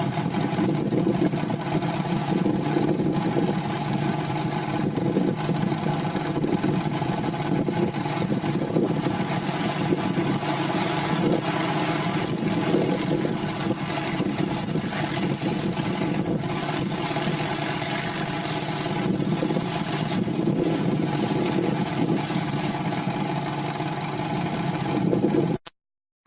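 Engine of a tree-cutting machine running steadily under load, with mechanical clatter over the engine tone. It cuts off abruptly near the end.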